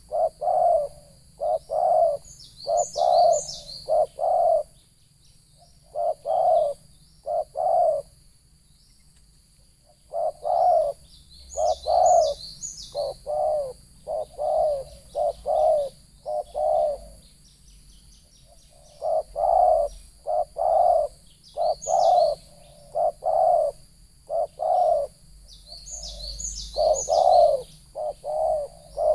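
Spotted dove cooing in runs of quick repeated coos, broken by short pauses. Higher, brief chirps come in about four short clusters.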